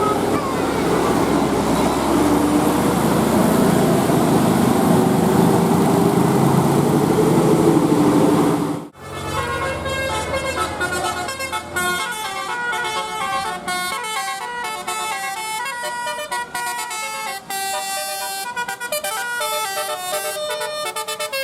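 A large bus passing close with its engine running, a loud rush with a few drawn-out gliding tones. After a sudden cut about nine seconds in, a 'telolet' multi-tone bus horn plays a quick tune of short stepping notes.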